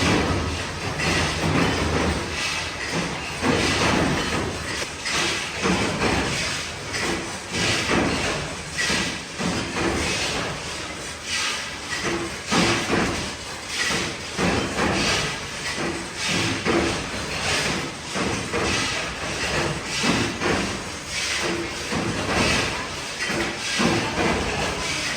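Hex nut production machinery running, with a steady hiss and clatter and repeated heavy stamping strikes about once a second.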